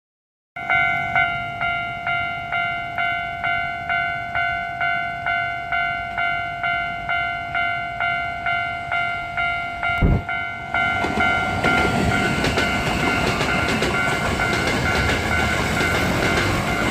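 Japanese level crossing warning bell ringing in a steady beat of about two strokes a second. About ten seconds in there is a thump, and then an electric train on the Hankyu Takarazuka Line passes over the crossing, its wheels rumbling on the rails while the bell carries on more faintly underneath.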